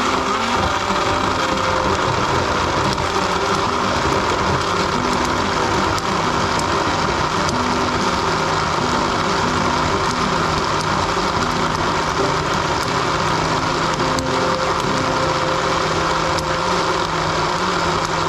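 Philips countertop blender running steadily, its motor whirring as it purées a thick chilli and shrimp-paste sambal.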